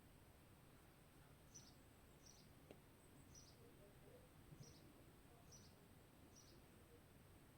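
Faint outdoor ambience with a short, high chirp repeating about once a second.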